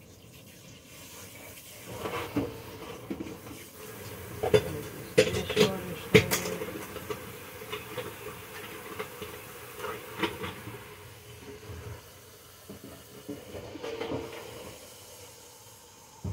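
Kitchen clatter: pots, pans or dishes knocked and set down several times, with a few sharp clanks a few seconds in, over a low steady hiss.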